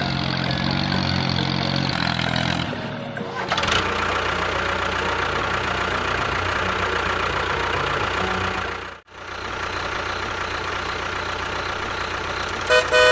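A vehicle engine running steadily, cutting out for a moment about nine seconds in, with short horn beeps near the end.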